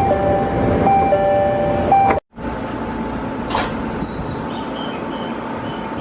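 Electronic two-tone chime repeating over the steady noise of a train, typical of a train door or station chime. It cuts off abruptly about two seconds in, leaving the steady rumble of the train with a single click a little later.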